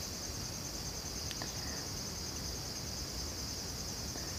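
Crickets chirring steadily in the background, a continuous high pulsing trill over faint room hiss, with one soft tick about a second in.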